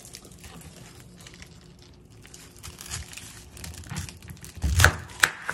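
A kitchen knife cuts through a pineapple onto a wooden cutting board: faint scattered handling clicks, then near the end a thump and a sharp knock of the blade on the board.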